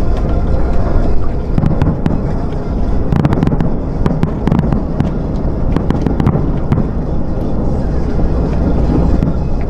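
Fireworks bursting and crackling, with a dense run of sharp cracks through the middle, over a steady low rumble.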